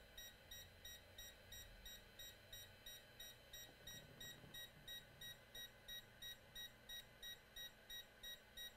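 Faint, rapid electronic beeping, about three short high beeps a second, from the voltage injection setup while it feeds current into the shorted laptop motherboard.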